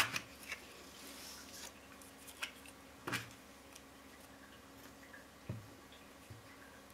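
Quiet handling of a glue stick and paper on a craft mat: a few light clicks and faint rustles as the stick is uncapped and rubbed along a paper strip, and a soft low knock about five and a half seconds in.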